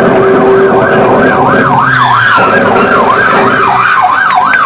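Police patrol car's electronic siren sounding in a fast yelp, the pitch sweeping up and down about three to four times a second.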